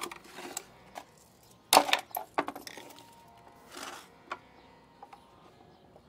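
Metal clinks and knocks of a tool working on small metal standoffs, with one sharp knock about two seconds in and a few lighter clicks after it.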